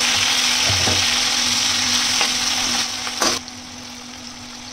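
Onion pieces frying in hot oil in a steel kadhai: a loud, steady sizzle. About three seconds in there is a short knock, and the sizzle then drops sharply.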